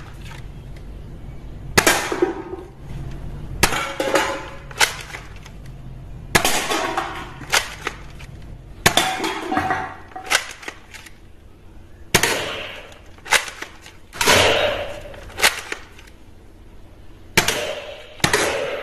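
Toy foam-dart blaster firing single shots, about a dozen sharp snaps, each followed by a brief clatter as empty cans and small plastic bottle targets are knocked down.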